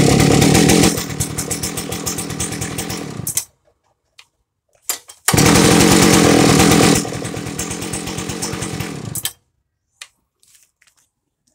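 Partner K850 concrete cut-off saw's two-stroke engine, run twice: each time it bursts in at high revs, drops after a second or two to a lower, rattling idle, then cuts out about three seconds later. A couple of short clicks come in the gap before the second run.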